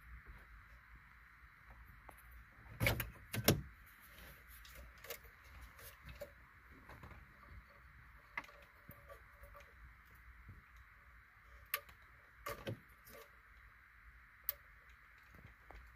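Scattered clicks and knocks of plastic wiring and antenna connectors being worked loose from the back of a VW Touareg's factory radio and its metal case being handled. Two louder knocks come about three seconds in, over a steady faint hiss.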